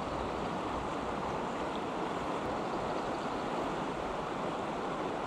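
River water flowing steadily, an even rushing hiss with no breaks.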